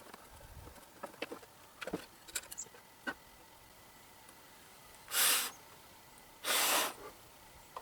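A few light clicks and handling noises, then two short hissing bursts about a second and a half apart, each lasting about half a second.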